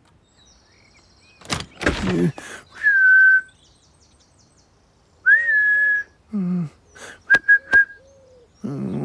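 Whistled notes: one slightly falling note, a longer note that rises and then holds, and three quick short pips near the end. Earlier there is a brief scuffle of noise, and short voiced cartoon-animal sounds fall between the notes.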